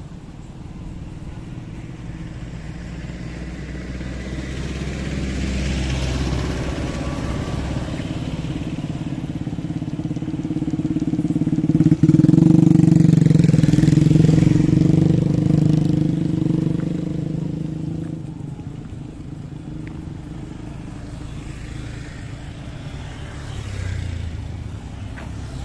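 Small motorcycles and scooters riding past close by, their engines growing louder to a peak about halfway through, then fading as they move away.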